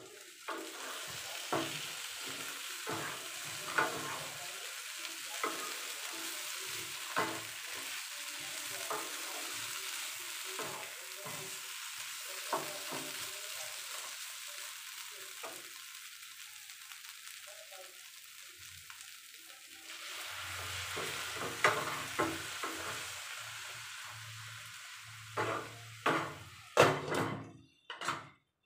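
Chicken pieces sizzling in oil in a non-stick frying pan while a flat spatula scrapes and taps against the pan as they are stirred. A few seconds before the end come several louder knocks as the glass lid goes back on the pan.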